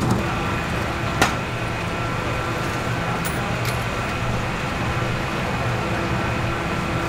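Steady mechanical hum with a few faint steady tones, and one sharp click a little over a second in.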